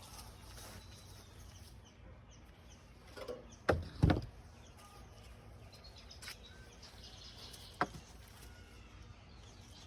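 A few sharp knocks against a quiet outdoor background: two loud ones close together about four seconds in and a smaller one near eight seconds.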